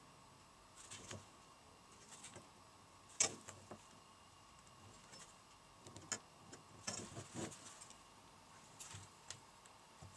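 Faint scattered clicks and taps from a steel ruler and pencil handled on a wooden block and workbench, the sharpest a little over three seconds in and a small cluster around seven seconds, over a faint steady hum.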